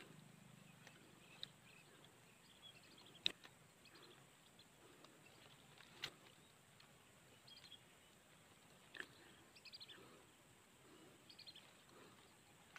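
Faint background hiss with short bird chirps now and then, and a few sharp clicks, the loudest about three seconds in and smaller ones about six and nine seconds in.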